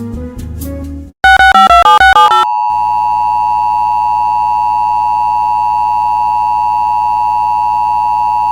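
Guitar music stops about a second in. A quick run of short beeps stepping up and down in pitch follows, then the Emergency Alert System two-tone attention signal sounds steadily and loudly as an alert begins.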